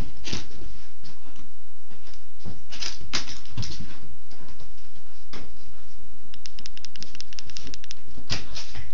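A Shiba Inu puppy's claws clicking and skittering on a hardwood floor as it chases, with scattered taps and a quick run of clicks about two-thirds of the way in.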